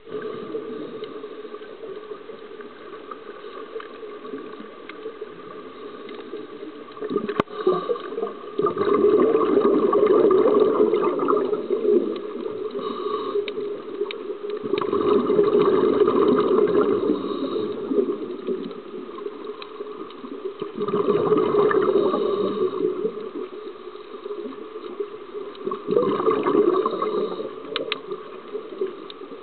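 Scuba diver's regulator exhaust bubbles gushing in swells of two to three seconds, about every five to six seconds, over a steady underwater hiss.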